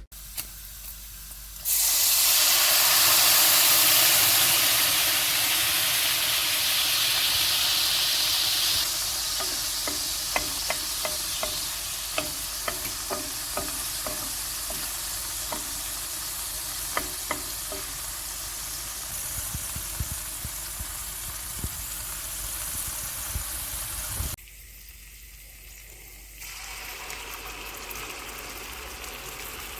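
Food sizzling in a hot frying pan: the sizzle starts abruptly about two seconds in, is loudest at first, then slowly dies down. Light clicks of a utensil stirring against the pan come through the middle. Near the end it drops suddenly to a much quieter hiss.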